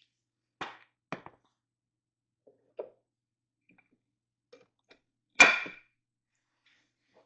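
Wooden barstool frame parts knocking together as a rail is fitted into a leg: a few light clicks and knocks, then one loud sharp knock about five and a half seconds in.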